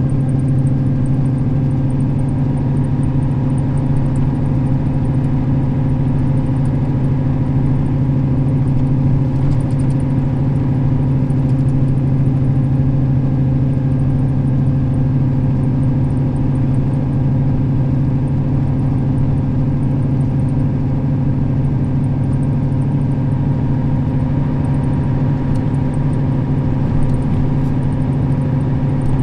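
Diesel engine of a Nissan Diesel KL-RA552RBN route bus running steadily under way, its low drone holding one even pitch with no rise or fall.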